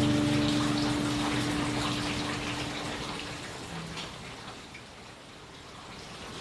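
Steady rain falling, with scattered drops pattering, under a soft held musical note that fades out about halfway through.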